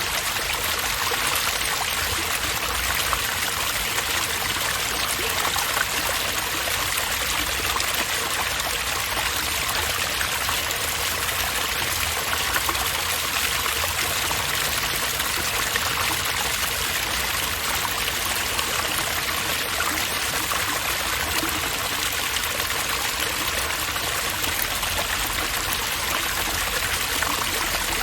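Water running steadily through a park water fixture, an even, unbroken rush of flowing and splashing water.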